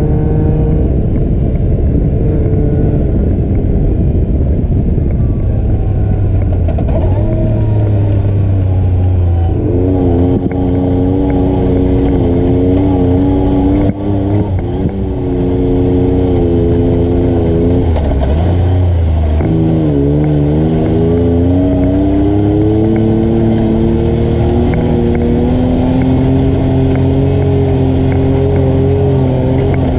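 ATV engine running under changing throttle, its pitch rising and falling again and again as the machine speeds up and slows down, with a short dip in level about halfway through.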